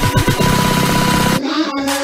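Background music: a fast electronic beat with rapid falling bass hits, cutting off about one and a half seconds in to a different tune of held notes.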